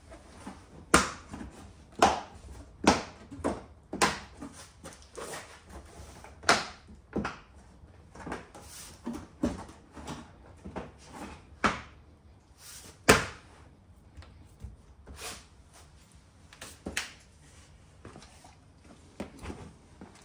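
Hands handling and pressing plastic trim on a BMW i3s front bumper: irregular sharp clicks and knocks of plastic parts, one every half second or so, a few of them loud.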